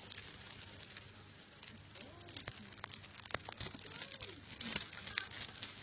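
Thin plastic sheet crinkling and crackling under the legs of a pair of mating beetles: irregular sharp crackles, sparse at first and busier from about two seconds in.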